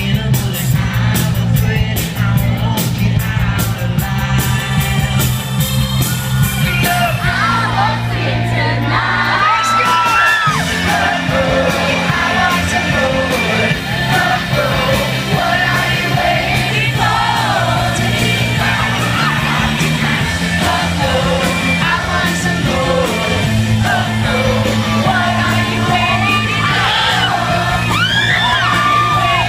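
Live pop-rock band playing a song through a concert sound system, with drums and guitar, heard from within the audience; the lead singer comes in about seven or eight seconds in and sings over the band.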